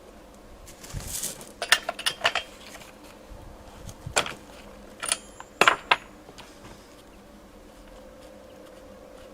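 A run of sharp clicks and knocks, like small hard objects being handled, in two clusters about a second and a half in and four to six seconds in.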